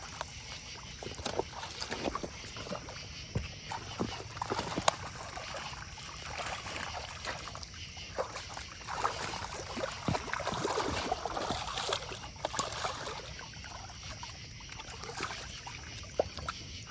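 Water splashing, with irregular clicks and knocks of fishing gear, as a small channel catfish is reeled in and landed.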